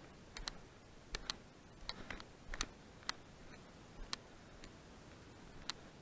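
About a dozen sharp clicks and ticks at irregular spacing, the crackle of dry twigs and clods under footsteps on dry ground.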